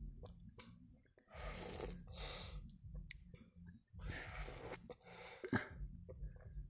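A child eating a wedge of watermelon: faint bites, slurps and breaths in a few short bursts.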